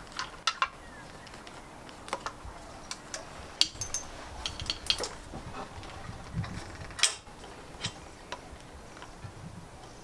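Irregular light clicks and knocks of a motorcycle clutch cable being handled and routed by hand.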